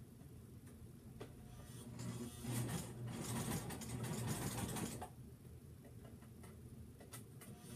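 Domestic sewing machine stitching fabric onto a koozie. It runs in one burst from about two and a half seconds in to about five seconds in, and is quieter before and after.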